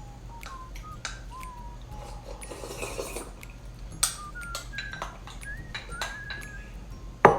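Close-up eating sounds: mouth clicks, smacks and slurps of someone eating spicy malatang with rice, with faint thin whistle-like tones here and there. A sharp clink of a spoon against a bowl near the end is the loudest sound.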